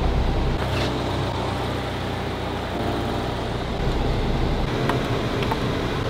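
Turbocharged Scion FR-S's flat-four engine running steadily with a low rumble; the deepest part of the rumble eases a little under five seconds in.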